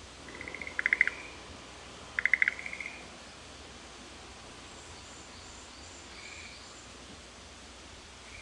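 Frogs croaking back and forth: two calls about two seconds apart, each a quick run of pulses ending in a few loud clicking notes. Faint high chirps follow around the middle.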